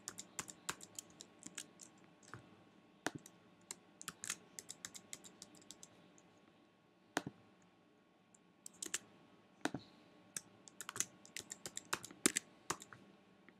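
Faint typing on a computer keyboard: irregular runs of keystrokes with a lull of a few seconds around the middle.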